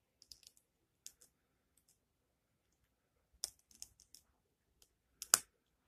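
Small plastic Lego bricks clicking as they are handled and pressed together, with a cluster of clicks past the middle and one sharper snap near the end.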